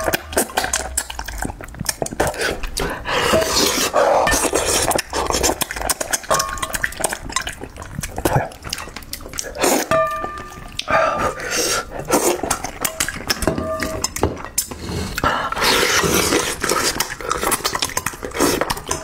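Close-miked eating of braised fish: chewing, sucking and lip smacks, with chopsticks clinking against a metal bowl and plate, a few clinks ringing briefly.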